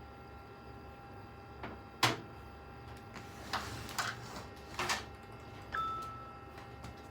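A PC case being handled: a sharp click about two seconds in, a few scraping, rustling movements, and a short ringing tone near the end that fades over about a second.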